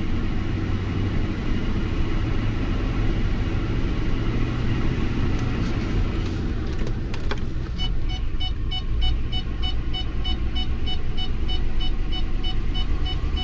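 Lincoln MKT V6 idling with a dead misfire on cylinder 5, a cylinder that is not contributing at all. A click comes about seven seconds in, and then an electronic chime beeps about three times a second over the engine.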